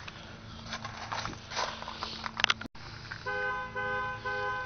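Scattered light knocks and rustles, then, a little past halfway, a car horn starts honking over and over in a quick, even rhythm, typical of a car alarm going off.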